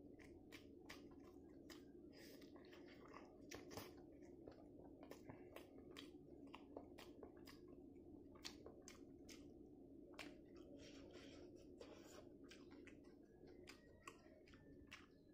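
Quiet, close-up chewing of rice and egg curry eaten by hand, with many short wet mouth clicks and smacks, over a faint steady hum.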